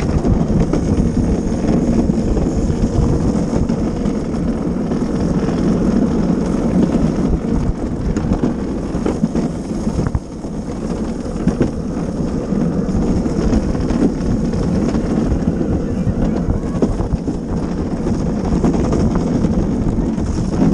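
Wheels of a gravity luge cart rolling on a concrete track, a steady low noise with wind buffeting the microphone. The noise dips briefly about halfway through.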